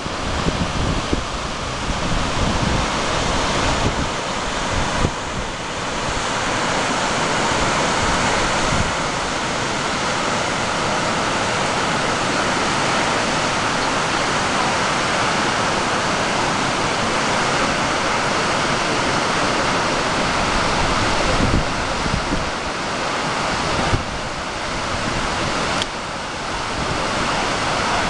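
Steady rushing roar of the Falls of Measach, water plunging into a deep rock gorge, with wind buffeting the microphone now and then.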